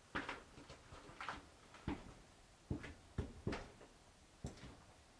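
Footsteps crunching and scuffing over debris on a concrete floor, about seven uneven steps.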